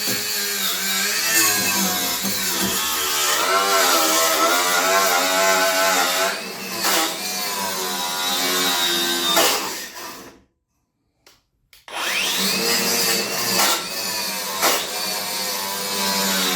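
Electric power tool with a wire brush scrubbing paint off a steel mower deck, its motor pitch wavering up and down as it is pressed into the work. It stops for about a second and a half near the middle, then spins back up with a rising whine and carries on.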